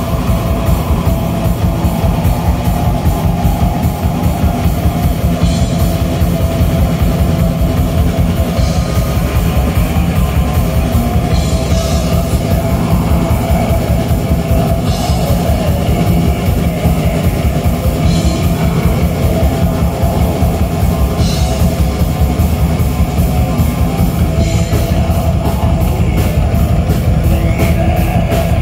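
Loud live black metal: distorted electric guitars over fast, dense drumming on a full drum kit, played without a break.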